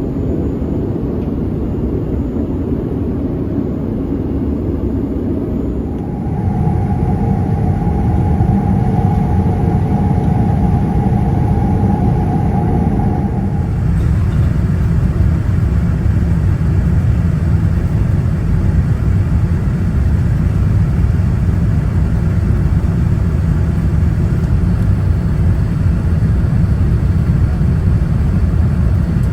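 Boeing 787-9 airliner cabin noise in flight: a steady low rumble of engines and airflow. About six seconds in it gets louder, with a steady mid-pitched hum on top for about seven seconds.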